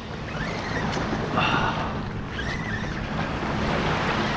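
Wind on the microphone over small waves lapping in shallow water at the shoreline, a steady rushing noise.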